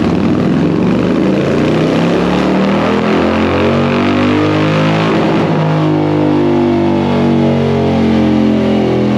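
Harley-Davidson Road Glide's Milwaukee-Eight V-twin, fitted with a Feuling 465 Reaper cam, running hard under load on a chassis dyno during a dyno pull.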